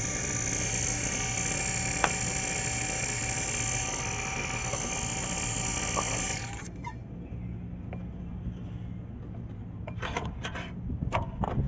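JB Eliminator vacuum pump running steadily as it evacuates an air-conditioning system, then switched off about six seconds in, leaving the system under vacuum for a leak check. A few sharp clicks and knocks follow near the end.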